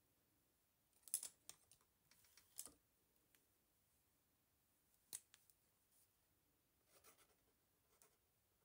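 A few faint, scattered clicks and taps, the sharpest about a second in and about five seconds in, as a paintbrush and a fine-liner pen are handled and set down on a wooden tabletop.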